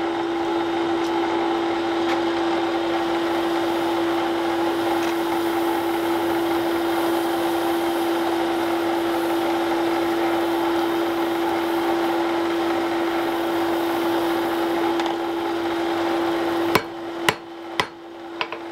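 A steady whirring drone with a constant low hum. Near the end, a few sharp hammer blows strike glowing wrought iron on the anvil, forge welding the collar.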